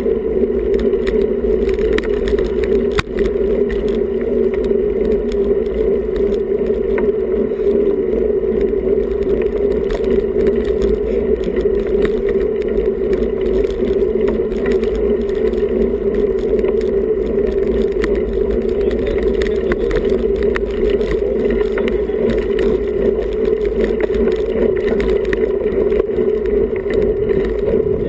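Steady riding noise on a bicycle-mounted action camera as a road bike rolls along asphalt at about 15 km/h: a constant rush of wind and road noise with scattered small rattling clicks from the bike and camera mount.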